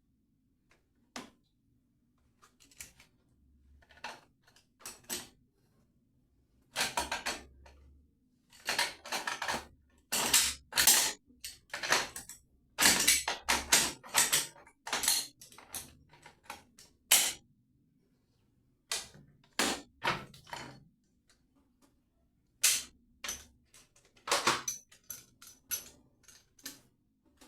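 Irregular clicking, knocking and short scraping from hand tools and metal tap fittings being handled and worked on. The sound comes in clusters, sparse at first, busiest in the middle, then tailing off.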